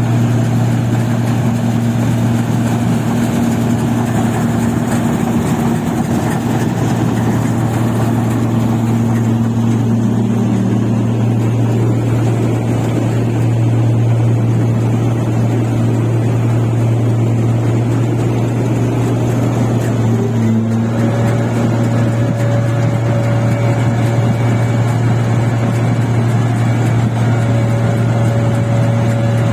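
A rice paddy machine's engine running steadily under load with a constant low drone. About two-thirds of the way through, a higher steady whine joins it.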